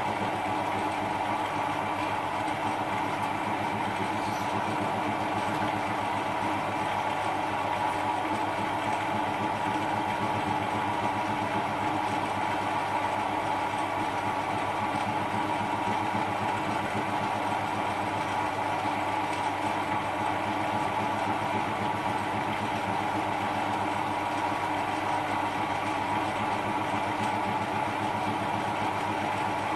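Small metal lathe running steadily, a constant motor-and-gear hum with a whine, as a miniature twist drill in a drill chuck bores into the spinning workpiece.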